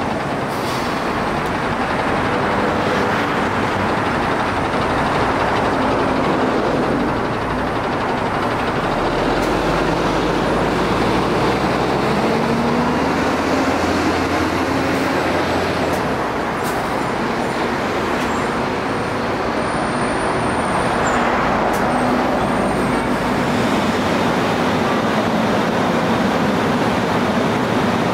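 Daewoo city bus's diesel engine pulling away from a stop, its note rising as it accelerates through the gears, over steady street traffic noise.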